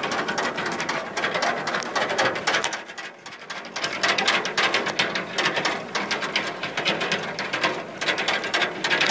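Pedal boat's pedal and paddle-wheel drive clattering with rapid, dense clicks as it is pedalled. The clicking eases off briefly about three seconds in.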